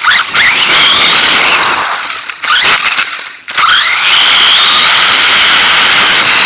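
Dromida DB4.18 RC buggy's electric motor whining up in pitch as it accelerates hard, with rushing running noise beneath. The sound drops out briefly about three and a half seconds in, then the whine climbs again and holds high.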